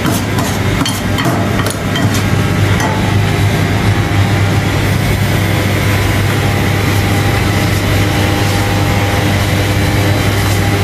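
Metal spoons clinking and scraping on a steel tray for the first two seconds or so, over a steady low mechanical hum.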